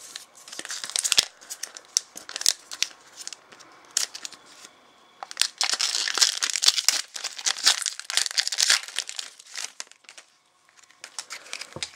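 Foil trading-card pack wrapper crinkling and tearing as it is opened, in uneven bursts of crackle that are densest around the middle and thin out near the end.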